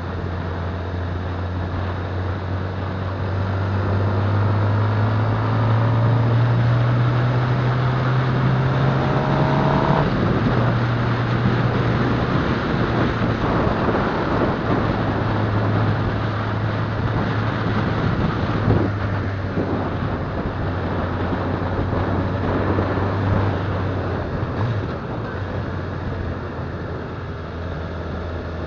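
Motorcycle engine running while the bike is ridden along a road. Its pitch rises for several seconds as it accelerates, drops back suddenly about ten seconds in, then holds steady. A constant rush of wind and road noise runs underneath.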